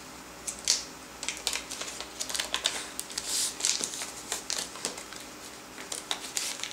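Plastic parts bag crinkling and crackling irregularly as it is handled and opened by hand.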